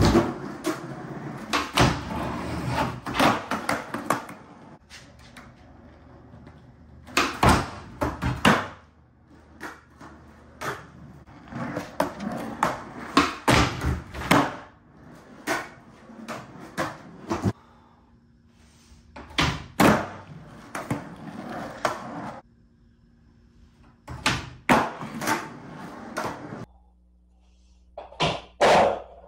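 Skateboard wheels rolling on a concrete garage floor, broken by repeated sharp pops and clacks as the board is snapped, lands and strikes a wooden ledge.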